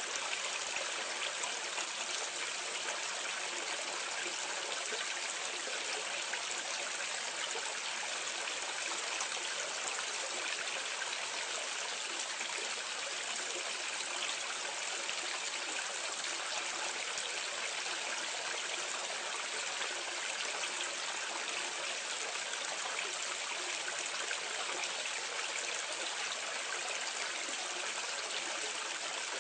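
Water pouring steadily from a drain outlet into a gully, heard from medium distance: an even, unbroken splashing rush.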